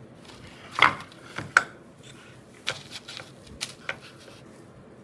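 A small box from a router kit being opened and handled: a series of about seven sharp clicks and knocks, the loudest about a second in.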